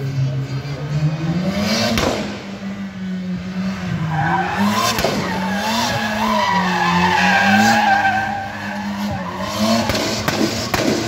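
A drifting car with its engine held at high revs, the pitch dipping briefly and climbing again as the throttle is worked. From about four seconds in, the tyres squeal with a wavering whine for about four seconds.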